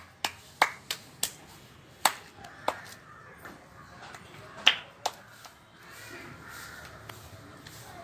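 A child clapping his hands: sharp, uneven claps, several in the first second or so, then a few more spaced out later.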